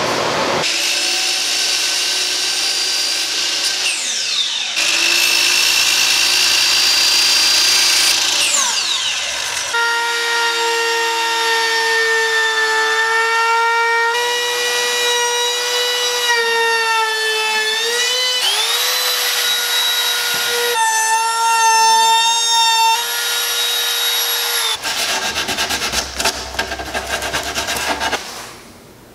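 Power tools working Baltic birch plywood in short clips: a noisy cutting tool for the first ten seconds, then a compact trim router running with a steady high whine whose pitch dips briefly as it loads up trimming the lid's edge.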